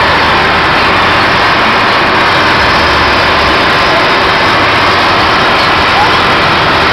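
A loud, steady mechanical drone, like a running engine, with a faint short squeak about six seconds in.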